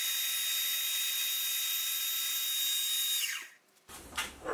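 Milling machine spindle running with a steady high whine as a dovetail cutter mills a groove in pine. About three seconds in, the whine falls in pitch and dies away as the spindle winds down. A short scraping follows near the end.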